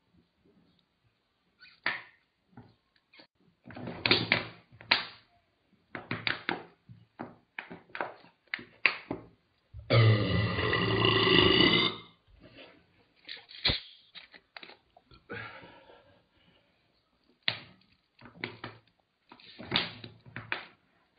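A man burps loudly once, about two seconds long, about ten seconds in, after chugging a bottle of carbonated soda. Around it are shorter, quieter sounds of gulping and plastic soda bottles being handled.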